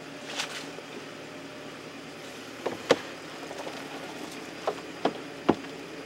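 Tractor engine running steadily, with several sharp knocks of plastic picking lugs against the rim of a plastic harvest bin as grapes are tipped in. The loudest knocks fall about halfway through and near the end.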